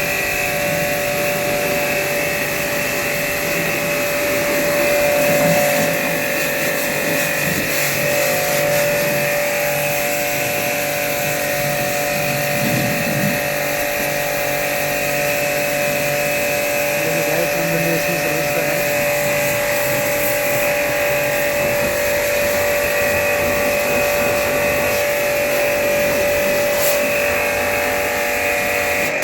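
Electric pump used for washing a window air conditioner, running steadily with a constant whine over a rushing noise, then cutting off abruptly at the end.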